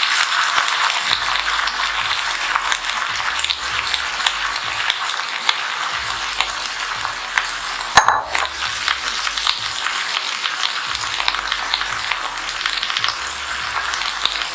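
Wet, freshly washed drumstick (moringa) leaves sizzling and crackling steadily in hot oil in a kadai, the water left on them from washing spitting in the oil. A sharp click about eight seconds in.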